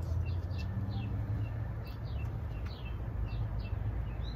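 Small birds chirping, a scatter of short falling chirps two or three times a second, over a steady low rumble.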